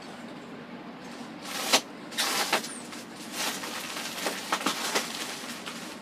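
Styrofoam packing being handled: a run of short scraping, rustling bursts, the sharpest a little under two seconds in.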